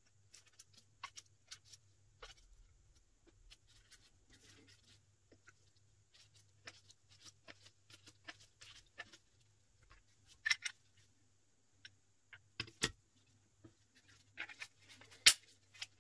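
A 3D-printed plastic rear sight press with a pistol slide in it, handled with gloved hands: scattered light clicks and plastic knocks, with a few sharper knocks in the last six seconds.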